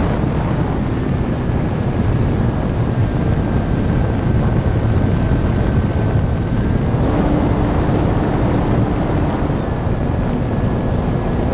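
Steady rush of wind buffeting the microphone of a RocHobby Strega P-51 RC plane in flight, with a faint motor whine whose pitch shifts slightly about halfway through.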